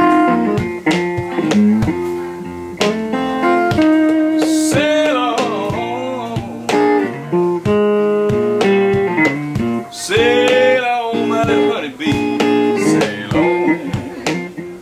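Acoustic blues played on an acoustic guitar, with a voice singing over it.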